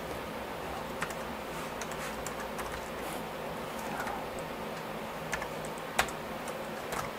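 Typing on a computer keyboard: keys clicking at an irregular pace, with a sharper keystroke about six seconds in, over a faint steady hum.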